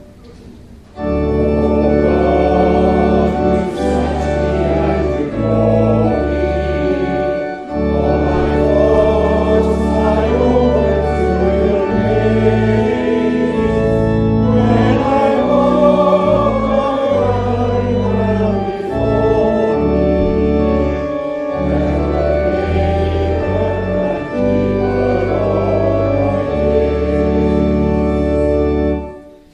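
Hymn sung by voices to organ accompaniment, slow held chords under the melody. The music starts about a second in, pauses briefly between lines, and fades near the end.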